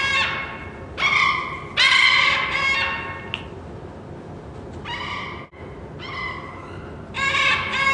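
Pet parrots calling: a series of loud, ringing calls, each about half a second to a second long and all at much the same pitch, with short pauses between them.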